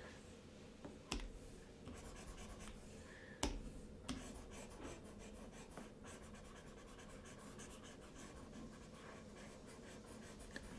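Faint tapping and light scratching of a stylus working on a drawing tablet, with sharper clicks about a second in and again at about three and a half seconds.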